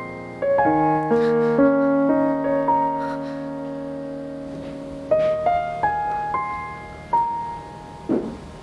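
Slow, gentle solo piano background music, single notes and chords struck and left to ring. There is a short noise near the end.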